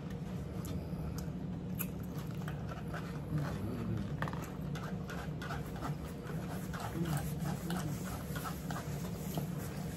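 Close-up chewing of crunchy cucumber salad, with many short crunches and clicks of forks against plates, over a steady low hum.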